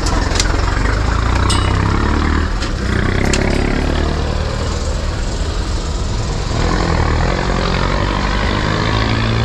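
Street traffic with a vehicle engine running close by, a steady low rumble, with a few short clicks in the first few seconds.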